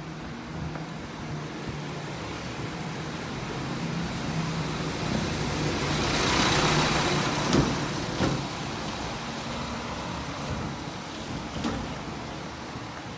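A motor vehicle passing close by: a steady low engine hum, with engine and tyre noise swelling to a peak about halfway through and then fading, and a couple of short knocks just after the peak.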